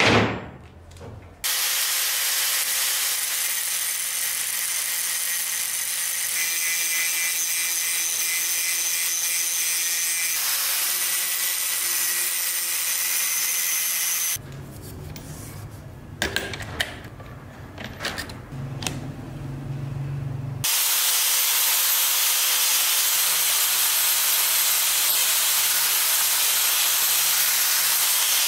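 One or two hammer blows on a steel punch at the start, then an angle grinder running steadily, its disc grinding rust off a steel hammer head held in a vise. About halfway through, the grinding gives way to a quieter stretch of scattered knocks for several seconds, then the grinder grinds again, steady and loud.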